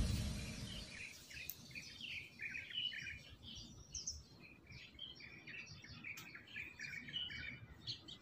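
Background music fading out in the first second, then many small birds chirping busily in short, overlapping calls.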